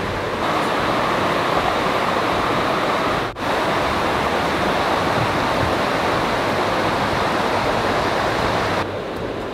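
Rushing water of a rocky stream running over rapids, a steady rush. It breaks off for an instant about three seconds in and drops in level near the end.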